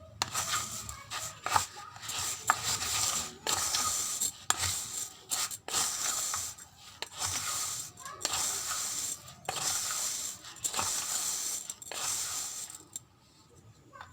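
Close-up crunching of raw rice grains being chewed, mixed with powdery rice flour, in about a dozen gritty bursts roughly a second apart, stopping near the end.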